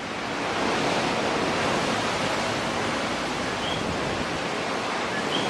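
Hurricane winds, a loud, steady rushing roar that swells up in the first half second.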